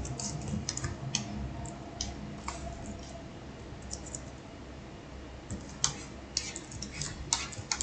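Computer mouse and keyboard clicks: irregular single clicks, coming more often in the last two seconds.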